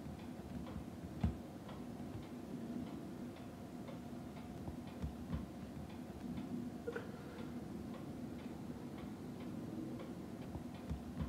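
Raindrops ticking and tapping on the window glass and sill, a few uneven taps a second, over a low steady hum.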